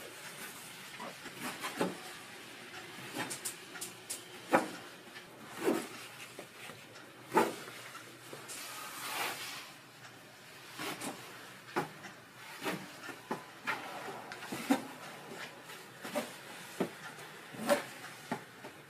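Hands working ropes of donut dough on a floured table: irregular soft thumps and pats, about one a second and some sharper than others, with brushing in between.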